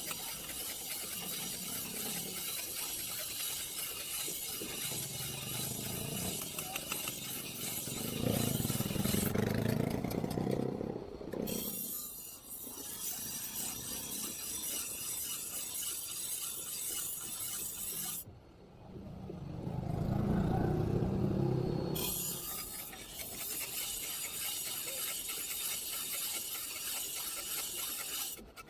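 Rapid, repeated scraping strokes of metal on metal, as when filing a sickle blade, with two louder, lower-pitched stretches about eight and nineteen seconds in.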